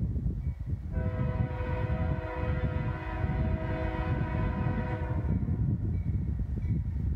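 Union Pacific locomotive air horn sounding one long, steady multi-tone blast of about four seconds, starting about a second in, as the train approaches the grade crossing. A steady low rumble runs underneath.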